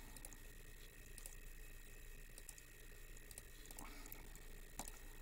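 Near silence: faint room tone with a steady hum, broken by a handful of faint computer-mouse clicks.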